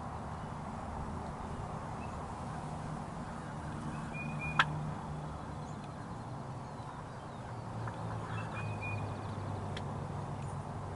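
Steady low outdoor rumble with two brief high chirps, and one sharp click a little before halfway that stands out as the loudest sound.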